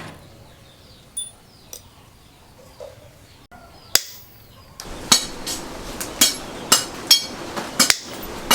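Hammer blows on steel. A few scattered metallic clicks come first, then from about five seconds in a hammer strikes metal roughly twice a second, each blow ringing briefly.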